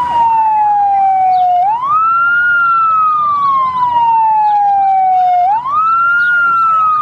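Fire engine sirens sounding together: one wails slowly, rising quickly and then falling over a few seconds, twice, while another yelps fast up and down, about three times a second.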